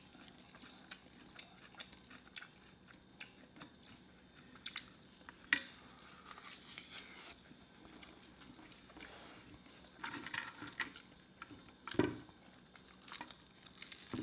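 Close-miked eating: chewing and biting with scattered wet mouth clicks, and two sharper clicks, about five and a half and twelve seconds in.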